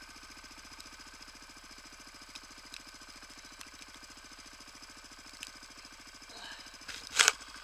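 Quad bike engine idling steadily with a fast, even pulse. A short loud noise breaks in near the end.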